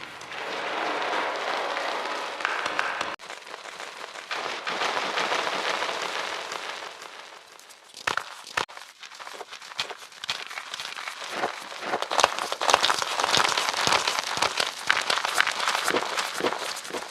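Reformed chalk being crushed and crumbled, giving a dense, crackling crunch of many small breaks. From about eight seconds in, sharper separate snaps come through, and they grow thicker toward the end.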